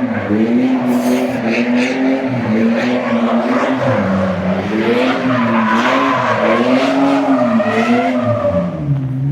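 A vehicle engine revved up and down again and again, its pitch rising and falling in waves about a second long.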